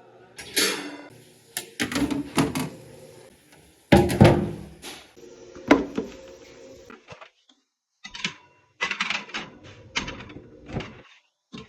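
Irregular knocks, thuds and clatter of items, shelves and the door being handled while a refrigerator is cleaned out, the loudest thud about four seconds in.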